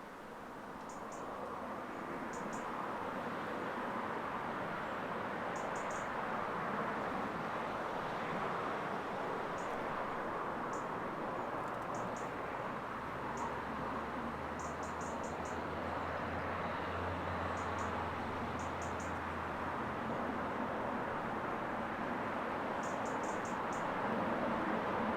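Town traffic, cars driving past as a steady rushing noise that swells over the first few seconds, with a deeper engine drone joining from the middle for several seconds. A small bird chirps high and short, in quick runs of two to four notes, on and off throughout.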